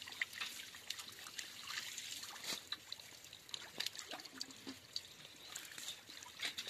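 Hands picking small fish out of a wet, muddy fishing net: water dribbling, with scattered small wet clicks and splashes.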